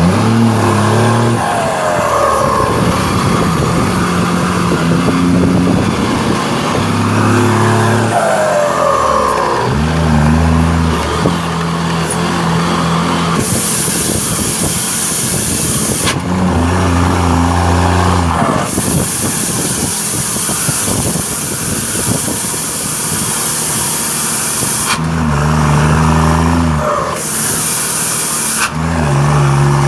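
Ford Cargo 2428 truck's diesel engine running loud, its pitch stepping up and down with changes in revs. Several stretches of high hiss start and stop sharply over it in the second half.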